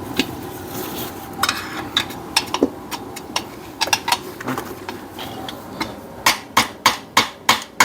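Sharp metal-on-metal knocks and clinks, then a steady run of taps about three a second near the end, as a tight part on the front of the engine is worked off with a small puller.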